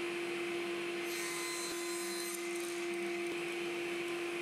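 Axminster cast-iron bench table saw with an induction motor, running at a steady single pitch while a board is ripped along the fence. The cutting noise is heaviest from about a second in to about halfway through.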